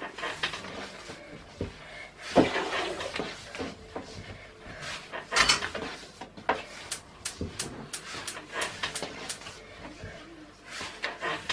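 Irregular knocks and clicks of objects being handled, with louder knocks about two and a half and five and a half seconds in, and a quick run of small clicks in the second half.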